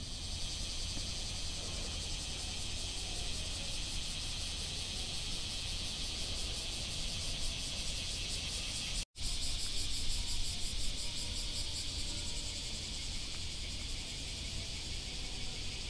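Cicadas droning steadily in a dense, fast-pulsing high buzz over a low outdoor rumble, broken by a momentary dropout about nine seconds in.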